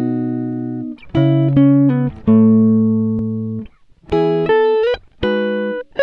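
Background music: a slow phrase of long held, pitched notes with short breaks between them, some notes sliding up in pitch.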